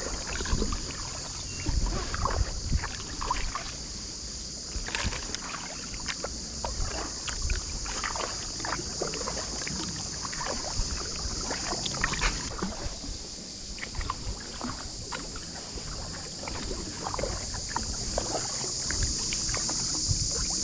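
Kayak paddle dipping and splashing in calm creek water, with drips between strokes, over a steady high-pitched hiss.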